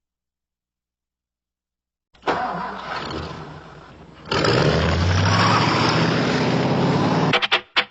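A car engine starting: after about two seconds of silence it turns over, catches about four seconds in and runs loudly with a slightly rising pitch, then breaks into choppy fragments near the end.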